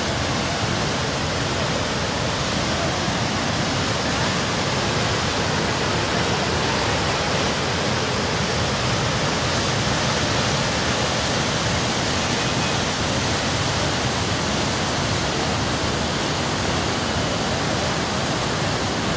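Flooded muddy river rushing: a steady, loud hiss of fast turbulent water carrying sediment downstream.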